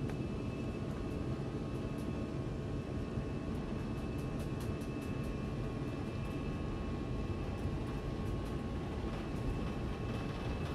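Airliner's engines and rolling noise heard from inside the passenger cabin as the plane moves along the ground: a steady, even rumble with a faint steady whine above it and occasional light rattles.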